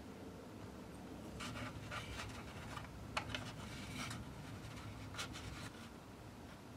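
Faint scratching and light clicks of hands working on a wooden model boat hull, with a pencil and a length of solder wire being handled against the wood, over a low steady hum.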